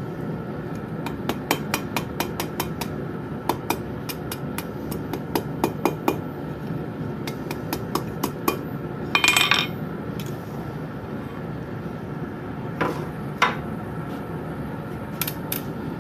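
Hammer blows on steel at the forge: a run of sharp strikes, about two to three a second, for the first half, then a brief metallic ringing about nine seconds in and a few scattered strikes after it, over a steady low background noise.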